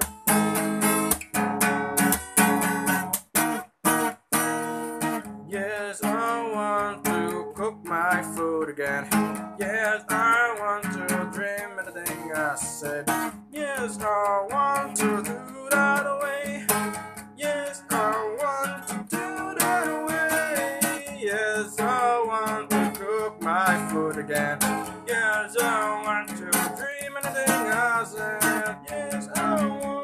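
Acoustic guitar strummed in chords. From about six seconds in, a man's voice sings over it.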